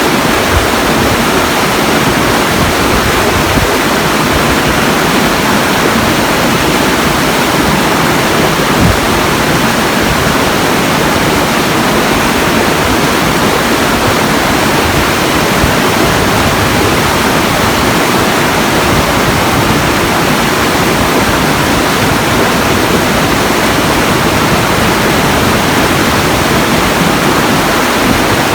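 Steady, loud rushing of water, even and unbroken with no separate splashes or other events.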